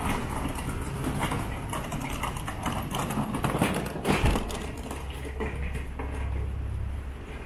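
Footsteps on pavement, an irregular run of short clicks, over a steady low rumble of street traffic that grows stronger in the second half.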